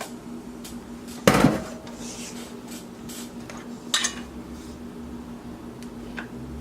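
A utensil scraping and knocking against a mixing bowl, with two loud clanks, one about a second in and another about four seconds in. A steady low motor hum runs underneath.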